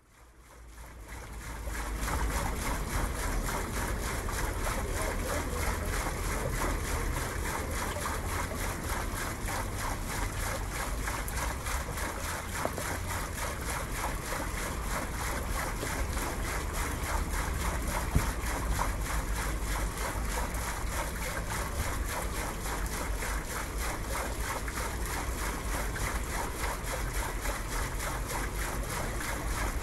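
Steady wind noise on the microphone, a rumbling hiss that fades in over the first two seconds, with one short knock about eighteen seconds in.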